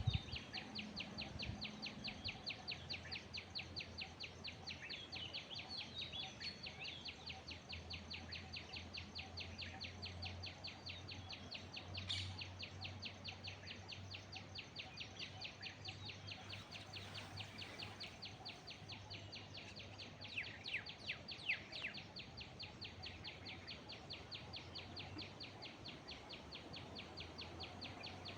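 Steady, fast insect chirping at about four to five pulses a second, with scattered bird calls over it. A few louder bird calls stand out about twenty seconds in.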